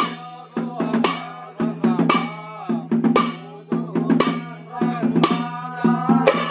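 Percussion playing a steady beat: a loud ringing stroke about once a second, with quicker, lighter drum strokes between, over a steady low hum.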